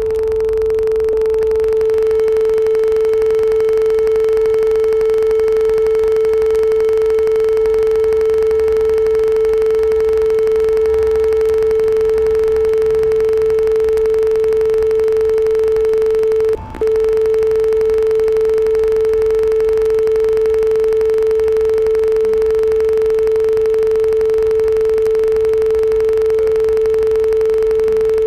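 A steady, loud pure tone held on the note A, unwavering for the whole stretch. It cuts out for an instant about two-thirds through, and a faint low rumble runs underneath.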